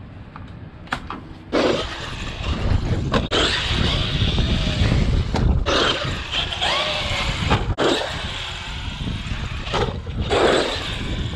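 A few light clicks, then about a second and a half in an RC monster truck's electric motor whines up and down in pitch over a steady rush of wind and dirt. There are a few sharp knocks along the way.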